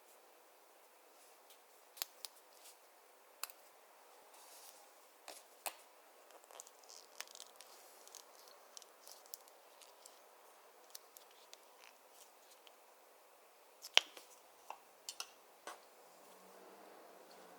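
Scattered small, sharp clicks and taps with faint crinkling as makeup and slime-making items are handled, one click about 14 seconds in much louder than the rest.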